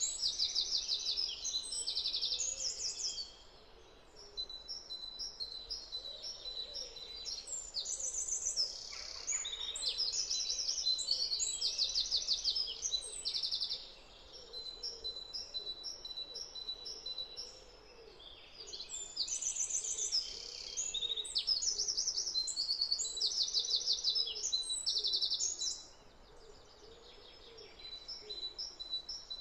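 Several songbirds singing at once, overlapping high chirps and trills in phrases with brief lulls between them.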